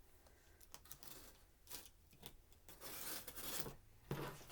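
Faint scraping of a blade cutting along a cardboard shipping box, with scattered light clicks and rustles, and a longer stretch of cutting about three seconds in.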